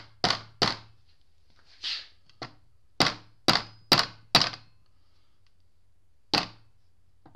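Brass hammer gently tapping a lipped front output seal into an NP231 transfer case housing, working around its edge. Short, sharp taps come in quick uneven runs, a few a second, with a longer pause before a last tap near the end.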